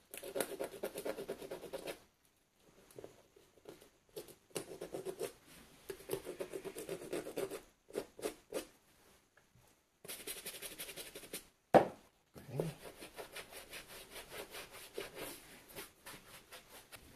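Rapid scratching and rubbing strokes on a suede boot's upper, in bursts with short pauses, as leftover paint spots are worked off by hand and, near the end, with a bristle brush. One sharp knock stands out about two-thirds of the way through.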